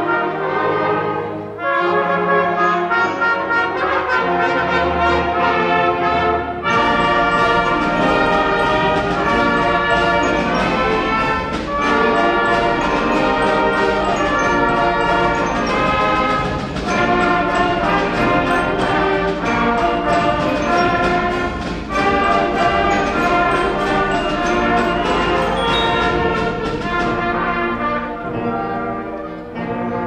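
A middle school concert band of brass, woodwinds and percussion playing a piece. About seven seconds in, the full band comes in with a steady percussion beat. The music thins out again near the end.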